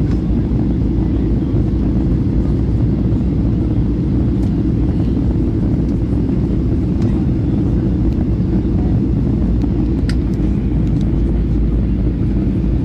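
Airliner cabin noise: a steady low rumble of jet engines and rushing air that holds an even level throughout, with a faint click about ten seconds in.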